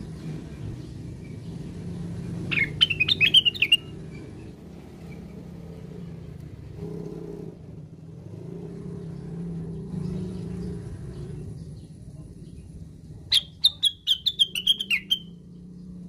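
Caged cucak wilis bulbul giving two short bursts of rapid, sharp chattering notes, one about three seconds in and a longer one near the end, each stepping down in pitch. A low steady rumble runs underneath.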